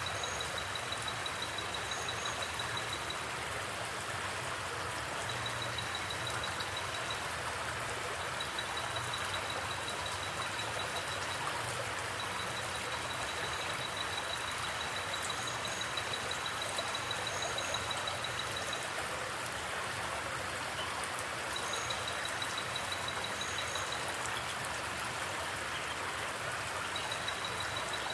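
Steady rushing of a river with crickets trilling in a fast, high-pitched pulse that runs in long stretches, stopping and starting again several times. Brief high chirps sound now and then above them.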